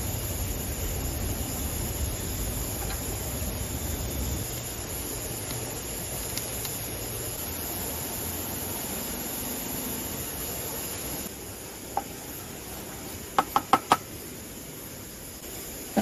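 Dark sauce simmering in a small non-stick pan on a mini camping stove, a steady hiss that drops away about eleven seconds in. Near the end come a click and four quick clinks, the loudest sounds.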